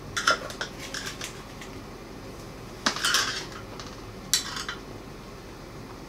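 Aluminum angle rails and ball-bearing drawer slides clattering as they are handled on a plywood base: three short bursts of metallic clicks and rattles, near the start, about halfway through and about two thirds through.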